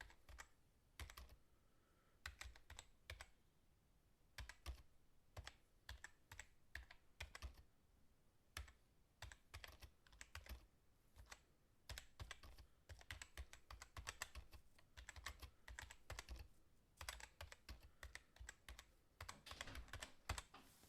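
Fast typing on a computer keyboard: quiet, quick, irregular key clicks in bursts separated by short pauses, getting denser near the end.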